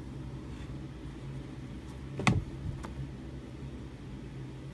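Steady low hum of room noise, with one sharp click a little past halfway and a fainter click about half a second later.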